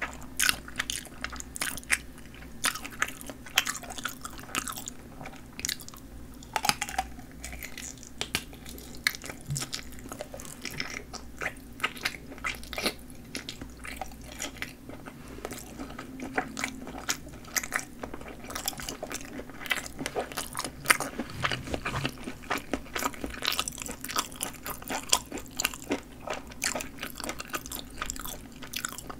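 Close-miked chewing and biting of sausages, their casings snapping, with many quick, irregular wet clicks and crunches from the mouth.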